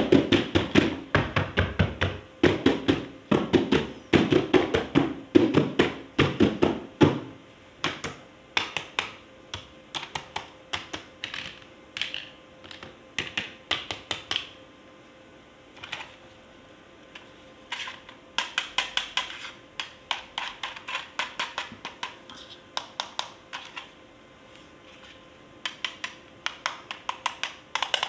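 Rapid clicking and tapping of hard plastic toys and packaging being handled and unboxed. The clicks come thick and fast for the first seven seconds, then in sparser clusters of light clicks.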